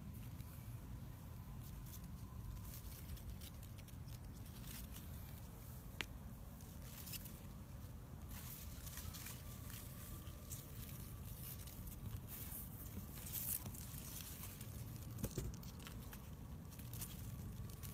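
Bean and pepper leaves rustling and brushing close to the microphone as a hand pushes through the plants, in short scratchy bursts over a steady low rumble of handling noise, with one sharp tick about six seconds in.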